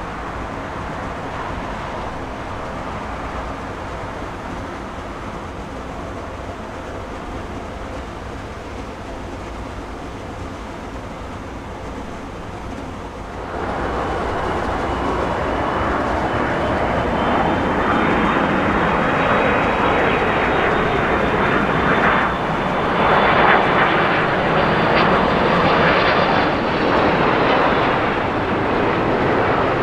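Airliner jet engines running steadily at moderate level. About halfway through, a sudden cut brings in a much louder jet: a Korean Air Airbus A330-323's twin Pratt & Whitney PW4000 turbofans, roaring close with a high whine that wavers.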